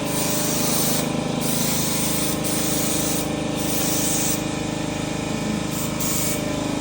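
Spray gun hissing in several bursts a second or two long as primer is sprayed onto the truck frame, over a steady motor hum.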